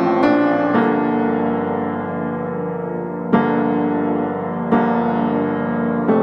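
Background piano music: slow chords struck a few times and left to ring.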